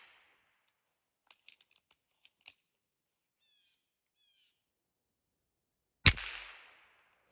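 A single sharp shot from a high-powered pellet rifle about six seconds in, with a short fading tail. Before it come a few light clicks and two short bird chirps.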